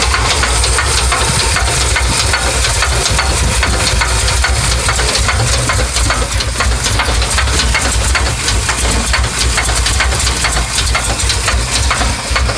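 1982 Chevy engine running steadily with a rapid, even knocking over its low rumble; the owner does not know what is causing the knock.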